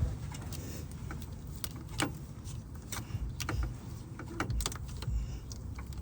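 Irregular light clicks and knocks as a serpentine belt is worked by hand onto the engine's pulleys, over a steady low hum.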